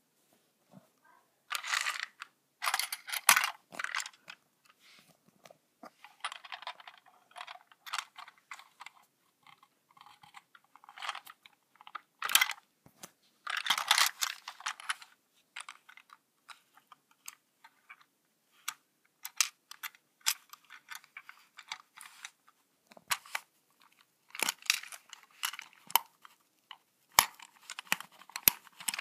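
Handling noise: irregular bursts of rustling and sharp clicks, loudest about two to four seconds in and again around twelve to fifteen seconds.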